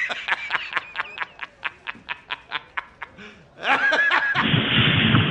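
A man laughing hard in quick staccato bursts, about six a second. Near four seconds it breaks into a higher, wavering squeal, and a louder, rougher stretch follows near the end.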